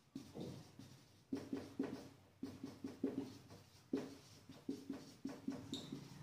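Marker pen writing on a whiteboard: a run of short, irregular strokes as a line of words is written.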